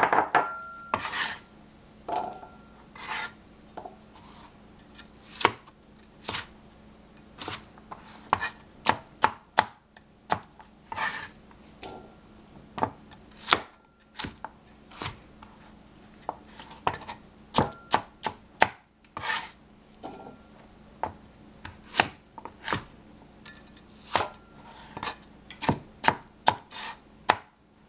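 Chinese cleaver chopping peeled cucumber on a plastic cutting board: irregular sharp knocks of the blade on the board, sometimes several in quick succession.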